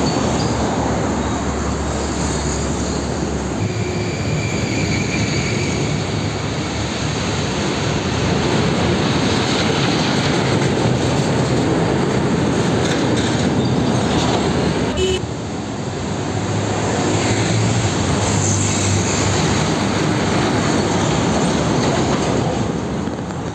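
Heavy container trucks (tractor units hauling shipping containers on trailers) passing close by one after another, diesel engines running and tyres and chassis rumbling steadily. The sound breaks off abruptly about fifteen seconds in and picks up again with the next passing truck.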